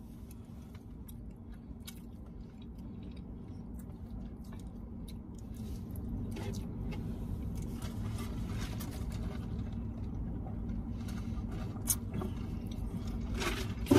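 Close-up mouth sounds of eating: chewing, with small wet clicks and rustles, over a steady low hum inside a car cabin. There are a few sharper clicks near the end.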